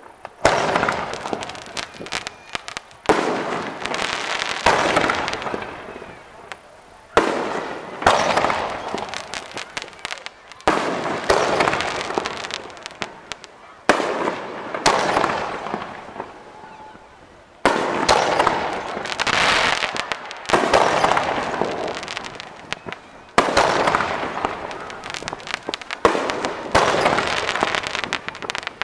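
Aerial firework shells bursting one after another, a sharp bang every two to four seconds, each followed by crackling that dies away over a second or two.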